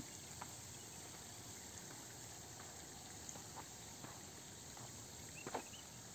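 Faint outdoor ambience: a steady high insect hiss, with a few soft footsteps on a dirt track.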